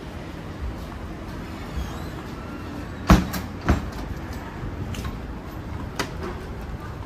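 Street ambience with a steady low traffic rumble, broken by sharp knocks or bangs: the loudest about three seconds in, a second just after, and a smaller one about six seconds in.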